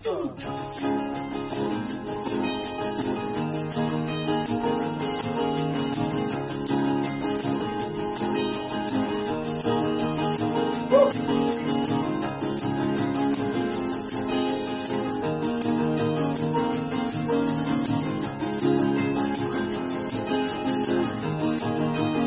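Instrumental intro of a small acoustic band: several acoustic guitars strumming chords, with a hand shaker keeping a steady rhythm.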